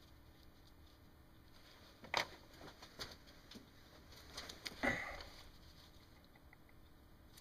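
Faint handling noises of small tools and parts on a workbench: a sharp click about two seconds in, a few lighter taps, then a louder clatter with a brief ringing about five seconds in, as scissors are picked up.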